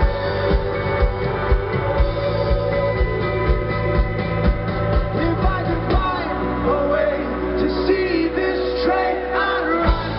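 Indie rock band playing live with a male lead vocal. A steady kick-drum beat drops out about halfway through, leaving held bass and singing, and the drums come back in at the very end.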